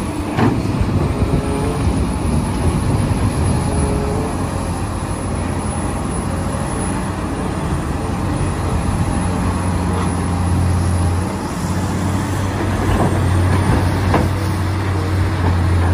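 Caterpillar 345C hydraulic excavator's diesel engine running under load with a steady low drone as it digs and loads rock, with a few scattered knocks from the rock and bucket. The drone grows stronger in the last few seconds.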